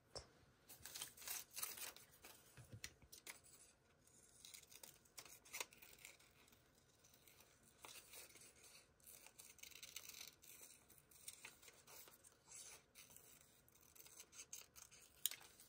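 Quiet paper-crafting sounds: scissors snipping through paper, with soft paper rustling and handling in irregular short strokes.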